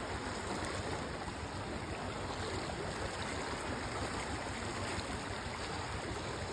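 Fast-flowing floodwater rushing past a concrete bridge: a steady, even rushing of water.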